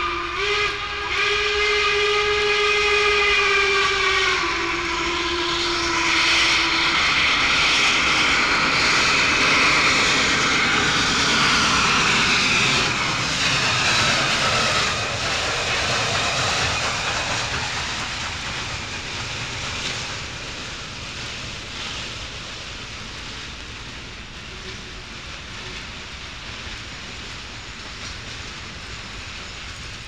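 Norfolk & Western Class Y6 compound articulated steam locomotive, a 2-8-8-2, sounding its chime whistle for a crossing, the lowest note stepping down about four seconds in. The whistle gives way to the loud rush of the engine passing. It then fades into the steady clicking of the freight cars' wheels as the train rolls away.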